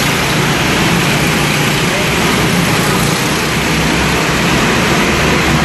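Go-karts running laps on a track, a steady, dense running noise with no single standout event.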